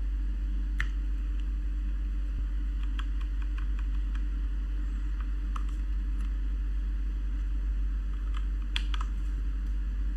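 Scattered keystrokes on a mechanical keyboard with Cherry MX Brown switches: single presses and a few quick pairs, over a steady low hum.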